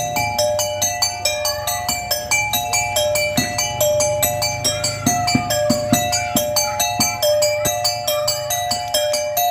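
Music: a quick, repeating melody of short struck notes over steady drum beats.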